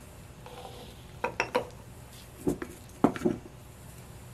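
Wooden spoon knocking against the rim of a small glass jar as chopped onion is spooned in, a handful of short sharp knocks in two clusters, the loudest about three seconds in.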